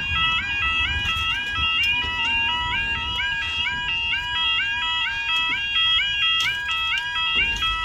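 Level crossing yodel alarm sounding: a warbling electronic tone that steps up in pitch about twice a second over a steady tone, with wind rumbling on the microphone.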